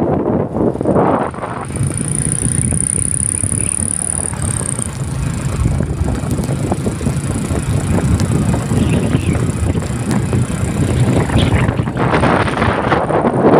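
Wind buffeting the microphone of a rider moving along a wet road, with road noise under it; the rush widens and gusts harder near the end.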